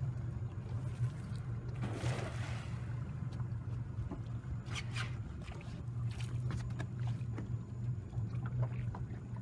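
Boat motor running steadily with a low hum as the boat moves slowly. There is a brief rush of noise about two seconds in and a few light knocks around five seconds.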